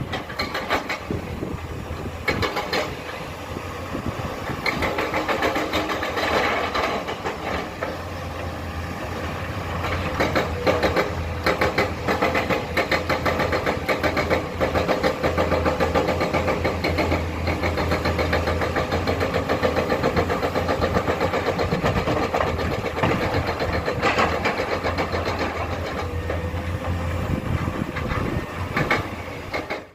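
Diesel engine of a Komatsu hydraulic excavator running steadily under working load, with a continuous whine while it digs and loads rock.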